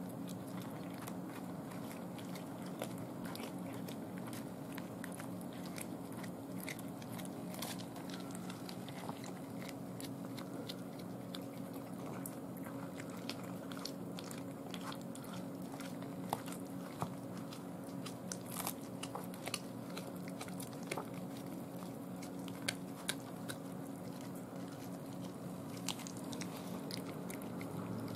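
Cats chewing and crunching whole raw day-old chicks, small bones cracking in irregular sharp clicks over a steady low hum.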